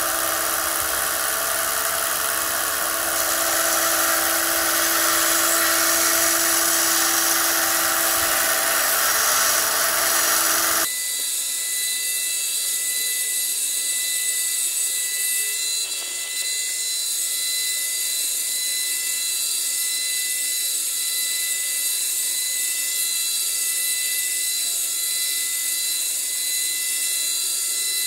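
Small narrow-belt bench sander running steadily with a motor whine while a small workpiece is held against the belt. About eleven seconds in the low rumble drops out suddenly and only the higher whine remains.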